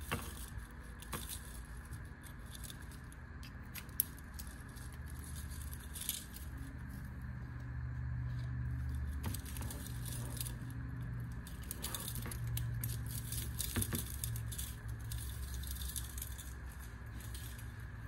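Small metal keychain hardware being handled: hex bit holders and a locking carabiner clip clicking and jingling as they are fitted together, in scattered small clicks. A low hum comes up in the middle and fades again.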